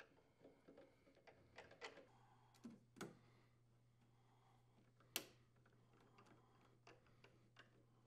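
Faint handling clicks and ticks of screws, a tubing clip and a nut driver on a refrigerator's rear panel, with one sharper click about five seconds in.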